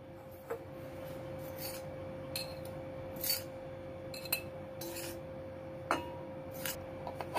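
Crushed dried fenugreek leaves scooped by hand from a cast-iron kadhai into a glass jar: a series of short scrapes and rustles, about one a second, with light clinks of glass against the pan. A faint steady hum runs underneath.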